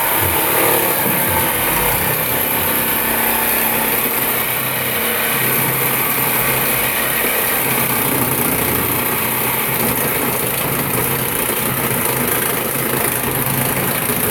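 Power saw with a dulling blade running under load, cutting through a steel exhaust pipe to remove a catalytic converter, a steady loud high-pitched grinding cut.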